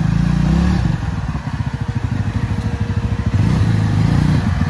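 Motorcycle engine running at low revs under throttle. It pulls harder near the start, eases off around the middle and picks up again near the end.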